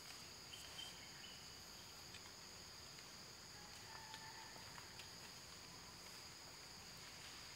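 Steady, high-pitched drone of a forest insect chorus, with a few faint short chirps now and then.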